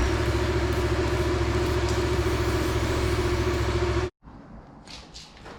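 Yamaha XSR700 motorcycle's parallel-twin engine idling steadily with an even low pulse, cutting off suddenly about four seconds in.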